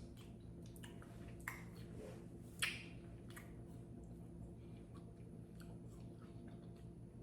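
Faint mouth sounds of someone nibbling an ice cream bar: soft smacks and clicks, two sharper ones in the first three seconds, over a steady low hum.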